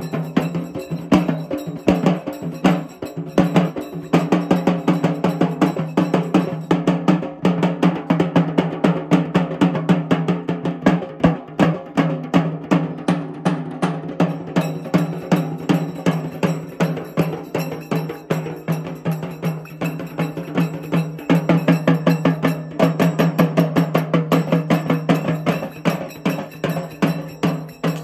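Music driven by fast, steady drumming, with a sustained low droning note underneath.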